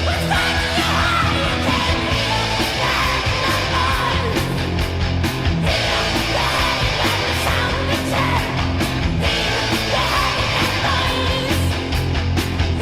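Heavy metal song: a loud, dense full-band sound with yelled vocals.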